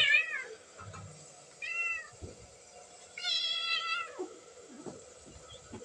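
Two domestic cats fighting, one letting out high, whining cries: one falling away at the start, a short one about two seconds in, and a longer, level one lasting about a second just after three seconds.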